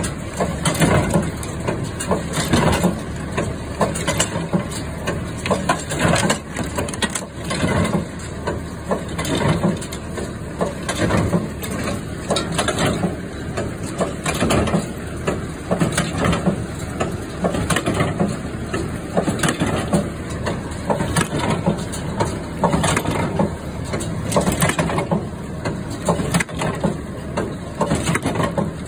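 Massey Ferguson MF 12 square baler running, with its freshly rebuilt plunger and new chains, the plunger stroke giving a steady rhythm about every second and a half. A tractor engine runs underneath.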